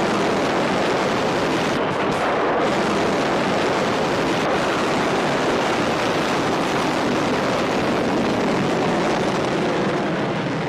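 Rocket motors of surface-to-air missiles fired from a Pantsir-S1 air defence system, burning as two missiles climb away after launch: a loud, steady rushing noise.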